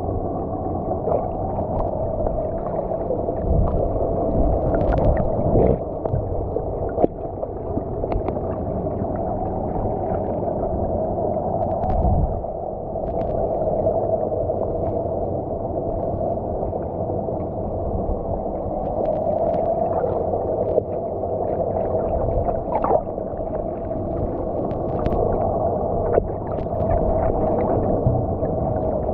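Underwater sound picked up by a submerged camera: a steady muffled rush with a hum in it, broken by scattered faint clicks and knocks.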